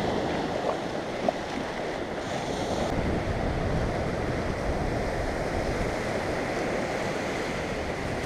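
Gulf of Mexico surf washing steadily onto the beach, with wind on the microphone.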